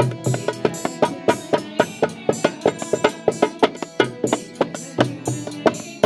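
Barrel hand drum played with both hands in a fast, driving rhythm of about five strokes a second, accompanying devotional music with a sustained organ drone and the bright metallic strikes of a dhantaal.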